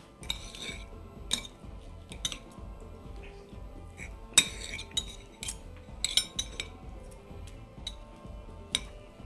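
Knife and fork clinking and scraping against a plate while food is cut and eaten, in irregular sharp taps, the loudest about four and a half seconds in.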